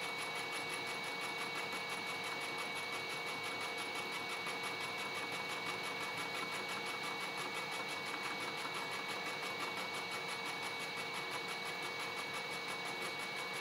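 Rockwell milling machine taking a steady facing cut in aluminium with a fly cutter: a steady whine with a fast, even pulse from the spinning cutter.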